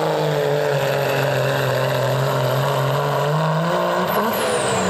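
Diesel pickup truck's engine under full load pulling a weight sled, a steady heavy drone that sags slightly as the truck labours, then climbs near the end with a high whistle falling in pitch.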